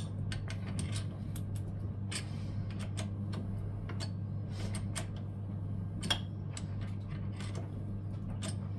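Irregular light metallic clicks and ticks from hand tools working the top cap loose on a scooter's front fork leg, over a steady low hum.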